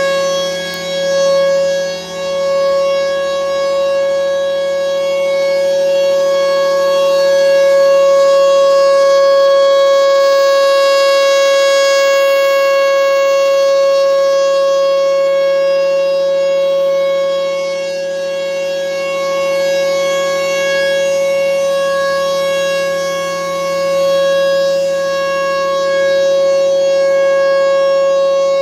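Federal Signal Thunderbolt 1000 rotating outdoor warning siren sounding its steady one-minute alert tone at full pitch, one held note. Its loudness swells and fades every several seconds as the horn turns toward and away from the listener.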